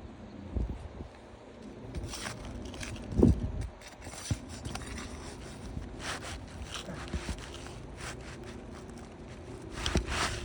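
Scraping, tapping and shuffling from hands-on work on an asphalt shingle roof, with a louder thump about three seconds in.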